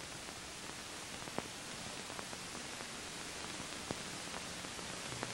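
Steady hiss with a few scattered crackles and pops: the background noise of an old instructional film's soundtrack.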